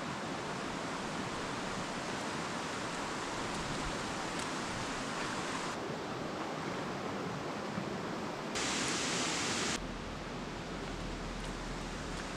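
Shallow rocky stream rushing steadily over stones. The water sound changes abruptly a few times, and is louder and hissier for about a second roughly two-thirds of the way through.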